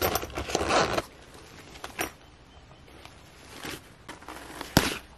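Fabric backpack being handled: the Fjällräven Kånken's fabric and webbing straps rustle for about a second, followed by a few light knocks and clicks.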